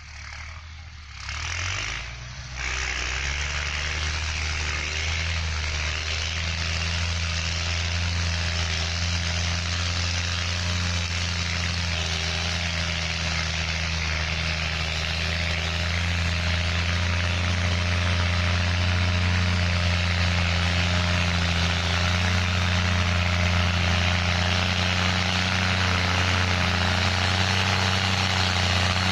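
New Holland TS6.125 tractor's diesel engine running steadily under load as it works a field in high-range first gear. It comes in about two and a half seconds in and grows slowly louder as the tractor approaches.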